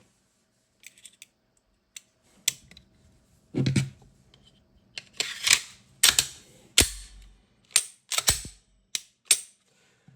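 Glock pistol parts being reassembled by hand: a string of irregular clicks, snaps and short scrapes of metal and polymer parts, with a couple of dull knocks.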